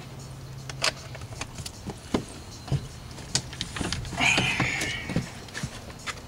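Scattered light clicks and knocks of plastic car interior trim and a light's wiring connector being handled, with a brief scraping rustle about four seconds in, over a steady low hum.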